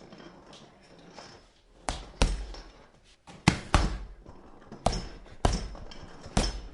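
Punches striking a punching bag: about seven thuds, several landing in quick pairs, each with a short dull decay.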